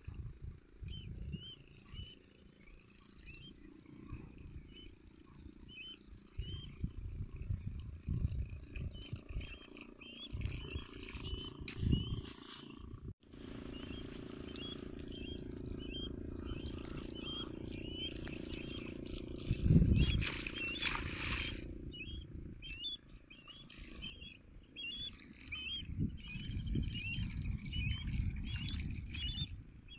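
Wind buffeting the microphone with a gusty low rumble, and water swishing as legs wade through shallow floodwater, loudest around two-thirds of the way in. A short high chirping call repeats over and over in the background.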